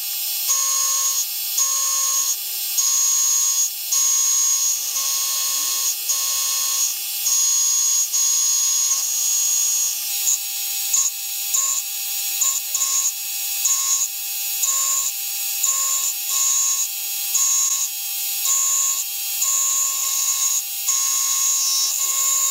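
Milling machine end mill cutting a curved radius on a rotary table: a steady whine from the cut that drops out briefly about once a second, over the machine's steady hum.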